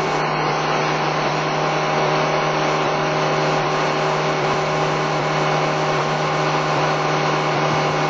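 Motorboat engine running steadily at speed, a constant hum, mixed with the rush of water churned up by the hull and wake.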